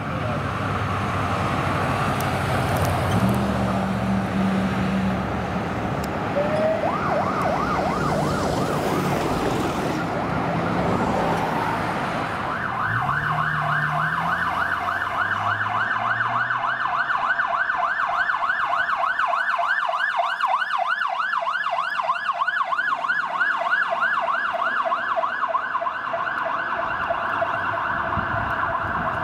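Emergency-vehicle electronic sirens. First traffic and engine noise, with a siren winding up about a quarter of the way in and briefly warbling. Then a fast yelp siren sweeps steadily up and down for the second half, over an engine revving up as the vehicle pulls away.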